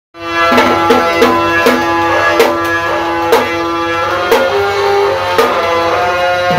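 Drum band music: drums struck in a rhythm over a melody of held notes, starting abruptly just after the start.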